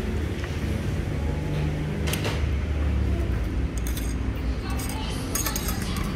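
Steady low rumble of road traffic, with a few short clicks and clinks about two, four and five and a half seconds in.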